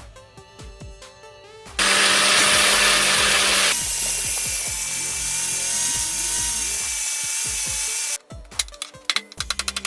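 A handheld power tool runs for about six seconds, starting about two seconds in. It is loudest for its first two seconds, then steadier with a thin high whine, and cuts off sharply. Electronic background music plays before and after it.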